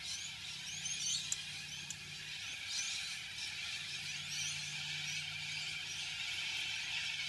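Quiet handling of a fuel pressure gauge as thread tape is wrapped onto its brass thread, over a steady background hiss. A few faint, short high squeaks come about a second in and again near three seconds.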